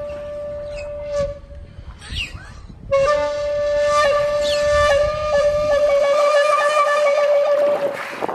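Beluga whales calling: a long, steady whistle with a reedy, horn-like edge, broken by short chirps and falling squeals. The tone returns louder about three seconds in, with a rapid pulsing on it near the end.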